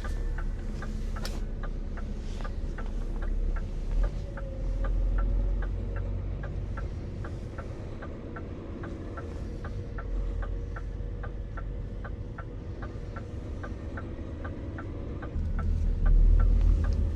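Scania lorry's diesel engine running with a low rumble, with a quick, even ticking about three times a second over it.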